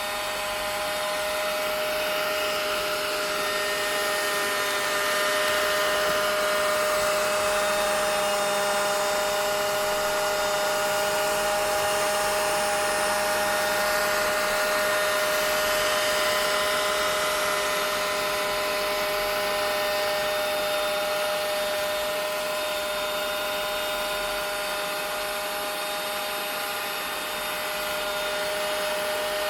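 Vacuum cleaner running steadily: a motor whine of several steady tones over a rush of air.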